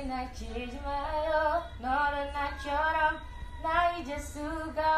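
A woman singing a slow melody, holding each note for about half a second to a second, with short breaks between phrases.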